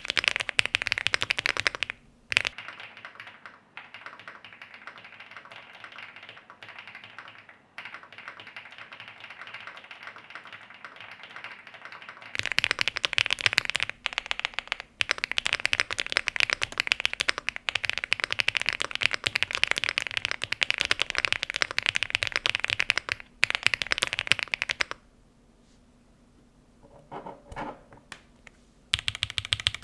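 Typing on an Elecfox INKY75 mechanical keyboard: a fast, continuous run of key clicks. It is quieter for a stretch in the first third, then louder, and stops for a few seconds near the end before starting again.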